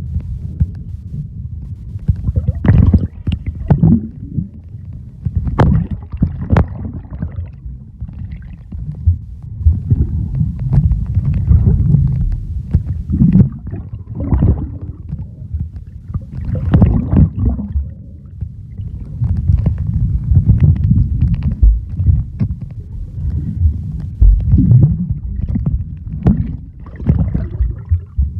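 Muffled, irregular sloshing and splashing of sea water close around a phone's microphone, with low rumbling and frequent short knocks while swimming.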